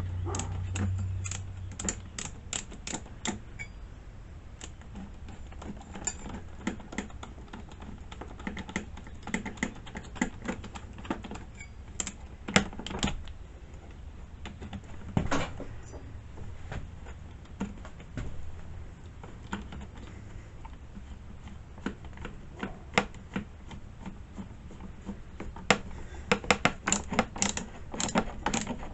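Irregular clicks, taps and small clatters of tools and small metal and plastic parts being handled while an air filter kit is fitted to a chainsaw, some coming in quick rattling runs.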